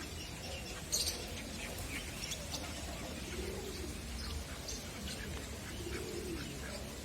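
Pigeons cooing in low, arching calls, with small birds chirping high over them.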